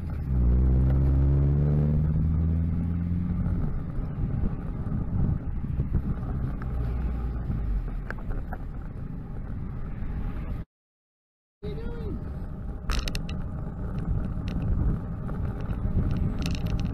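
A box van's engine revving up as it pulls past close by, its pitch rising over the first two seconds or so, then steady road and wind noise. The sound drops out for about a second two-thirds of the way through, and a few sharp clicks follow.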